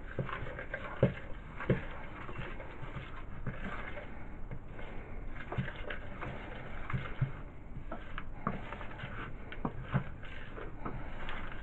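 Cookie dough being stirred in a glass mixing bowl: a spoon scraping through the crumbly mix and knocking against the glass at irregular intervals.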